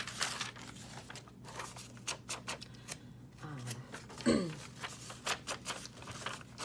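Sheets of paper being handled and shuffled: a run of crisp rustles and light crackles. About four seconds in comes a short falling tone, the loudest sound.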